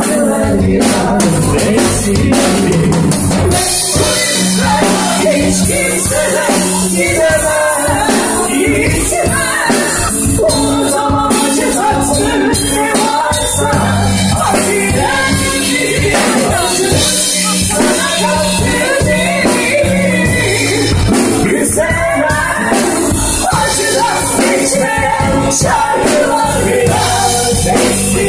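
Live band performance of a Turkish song: a woman singing into a microphone over keyboard and a drum beat.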